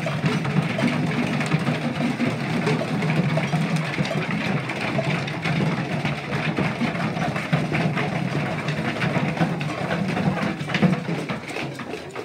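A group of children beating homemade drums, tin cans and plastic buckets, with sticks all at once: a dense, continuous clatter of overlapping strikes that thins out near the end.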